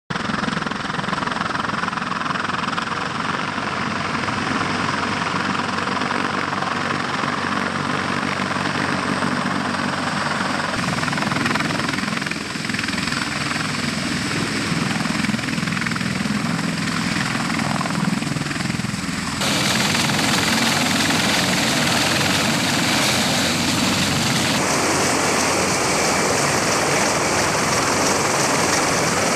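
CH-53E Super Stallion heavy-lift helicopter's rotor and three turbine engines running loud and steady as it comes in low to land. The sound changes abruptly a few times, about 11, 19 and 25 seconds in.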